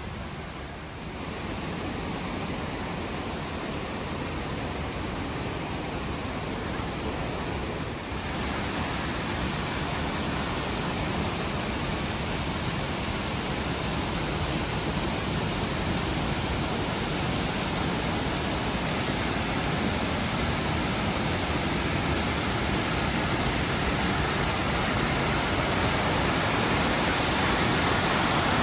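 Brandywine Falls waterfall: a steady rush of falling water. It gets louder in steps about a second in and again about eight seconds in, then slowly keeps rising.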